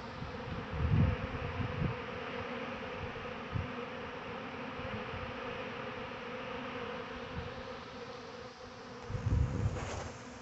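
Steady buzzing drone of a crowd of honeybees flying in circles in front of their hive entrance, a held hum throughout; the beekeeper is unsure whether this is robbing or an orientation flight. Low rumbles on the microphone about a second in and near the end.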